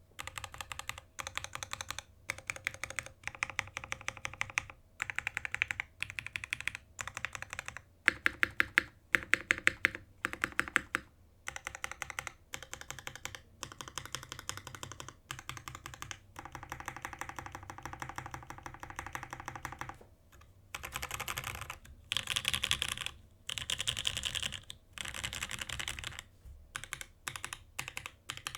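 Typing on an S+R Iron165 R2 65% mechanical keyboard with an aluminum case and plate, lubed OP Cherry MX Black linear switches and GMK keycaps. Fast runs of keystrokes come in bursts with short pauses between them.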